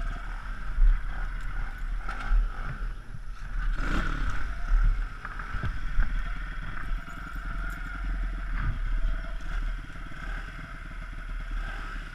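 Pit bike engine running, under a steady low rumble, with several sharp knocks and clatters from the bike on rough ground, the loudest about four, six and eight and a half seconds in.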